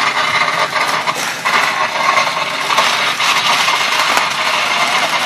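Firecrackers going off in a dense, continuous crackle of rapid pops.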